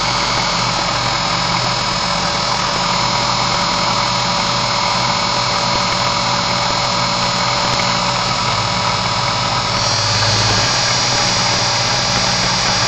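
Induction motor with combined 'Slavyanka' windings running at high speed on a test bench: a steady hum with a whine over it. Its sound shifts slightly about eight to ten seconds in as the current is turned up.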